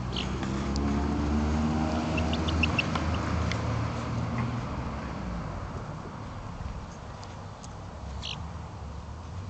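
Three-week-old chicks peeping: short high peeps, with a quick run of them about two seconds in and a louder one near the end. Under them, a low engine rumble is loudest in the first half and then fades.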